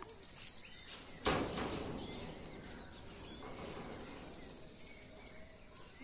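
Faint outdoor background noise: a sudden rush of noise starts about a second in and slowly dies away into a steady low hiss, with a few faint bird chirps in the middle.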